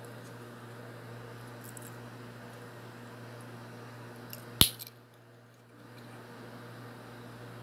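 A small gold-tone metal photo locket snapping shut with one sharp click about halfway through, over a steady low hum.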